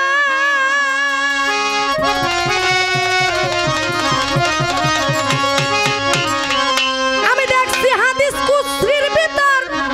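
Live baul folk band playing an instrumental interlude. A sustained, wavering melody is heard, and hand drums come in about two seconds in with a quick, steady beat.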